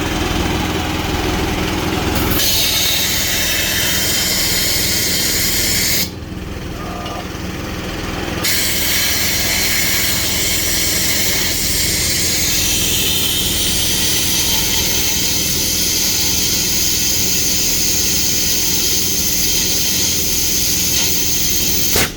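Compressed air rushing out with a steady loud hiss over the low hum of a running engine, growing louder a couple of seconds in, dropping back briefly around six seconds in, then running on steadily until it cuts off at the end.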